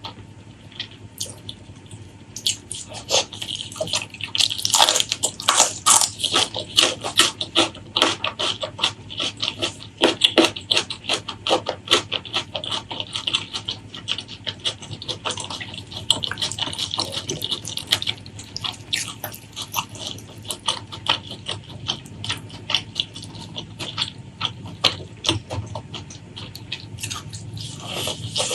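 Close-miked eating sounds: wet, sticky chewing and lip smacks in a dense, irregular stream, busiest from about three to twelve seconds in.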